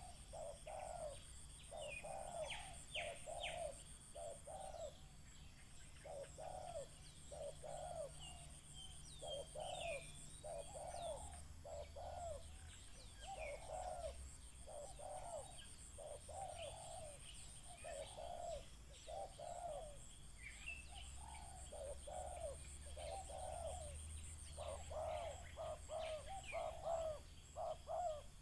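Spotted doves cooing over and over in quick, back-to-back phrases, with scattered chirps of small birds above them.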